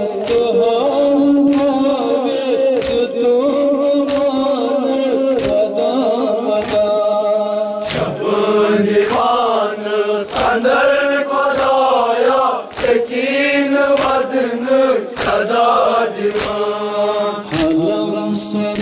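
A group of men chanting a mourning lament in unison. Their open hands strike their chests in a steady beat, roughly once a second.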